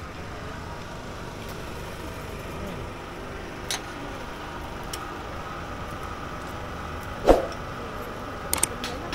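Outdoor crowd ambience: a steady low rumble under a faint murmur of voices, with a few light clicks and one sharp knock about seven seconds in.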